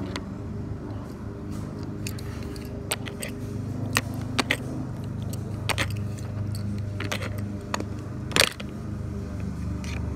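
Wet clicks and smacks of thick slime being squished as a toy car is pushed through it, a scatter of sharp pops with the loudest about eight seconds in, over a steady low hum.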